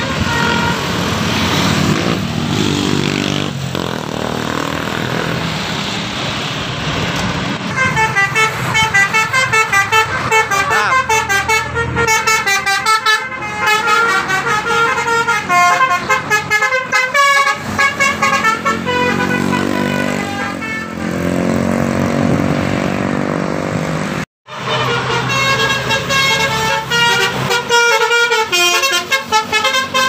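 Bus 'telolet' multi-tone horns playing quick, changing jingles of short notes in two long stretches, the first starting about a quarter of the way in, over the running engines of passing buses and motorcycles in road traffic.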